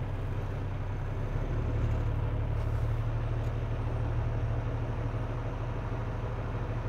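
Semi truck's diesel engine running at low speed while the rig backs up, heard from inside the cab as a steady low drone that gets a little stronger about a second and a half in.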